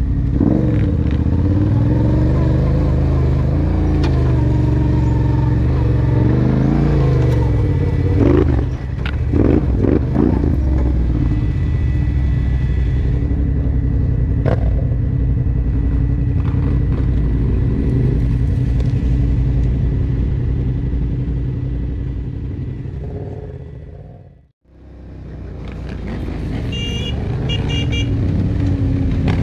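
Sport ATV engine running as the quad is ridden along a dirt trail, pulling steadily with its pitch rising and falling, and a few harder knocks and clatter about eight to ten seconds in. The sound fades to silence about five seconds before the end and fades back in.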